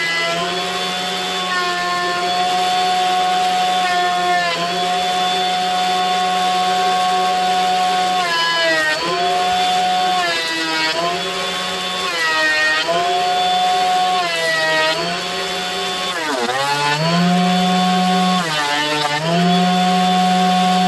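Benchtop thickness planer running with a steady, high-pitched motor whine. The pitch dips again and again, every two to four seconds, as each curly maple board is fed into the cutterhead and loads the motor, then comes back up.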